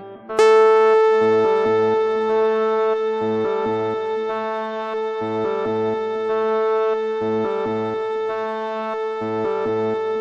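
Background music: one long held note over a repeating low bass figure.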